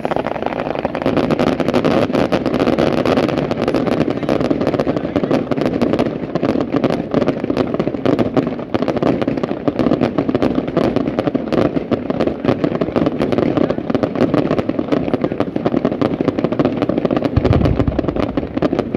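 Fireworks going off: a continuous dense crackling and hiss from fountains and crackling star effects, with a deeper boom near the end.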